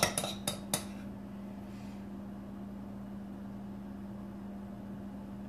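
A few quick clinks of a utensil against a dish as batter is scooped, ending about a second in. After that only a steady low hum remains.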